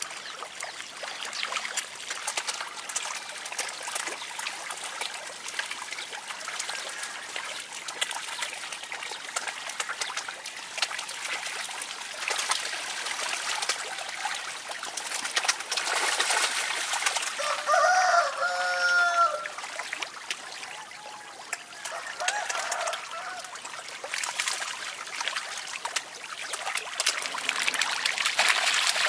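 Dense splashing and dribbling of water as many snakehead fish thrash at the surface of shallow pond water, growing louder about halfway through and again near the end. A short pitched call sounds about two-thirds of the way through.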